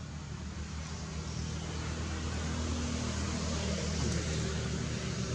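Steady motor hum, a low drone under an even hiss, swelling slightly toward the middle.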